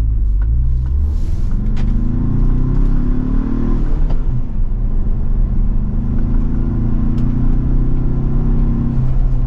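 Ford Bronco's turbocharged four-cylinder pulling away gently through an XForce Varex valved catback exhaust with the valves closed. The engine note rises, drops at an automatic-transmission upshift about four seconds in, then climbs again.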